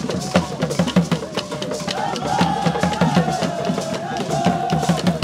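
Traditional Ghanaian barrel drums played live by a drum ensemble, keeping a quick, steady beat of low strokes and sharp clicks. From about two seconds in, a high wavering tone is held over the drumming.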